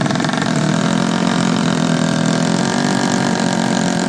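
Engine of a tuned 130cc four-stroke underbone moped drag bike running steadily at a fast idle, holding an even pitch.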